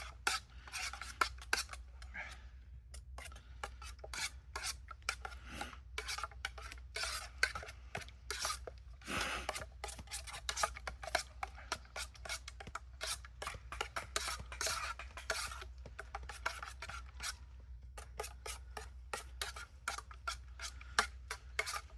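Burger mince being mixed together with its seasoning in a bowl: a steady run of irregular rubbing and scraping sounds, several a second.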